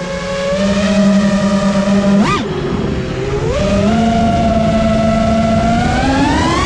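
FPV quadcopter's four Hypetrain Blaster 2207 1800kv brushless motors spinning Dalprop 5145 props, heard through the onboard GoPro: a buzzing whine whose pitch follows the throttle. There is a quick sharp rise and fall about two seconds in, and the pitch climbs near the end.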